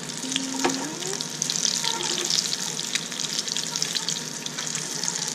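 Breaded white perch fillets frying in hot oil in a pan: a steady sizzle with many small crackling pops.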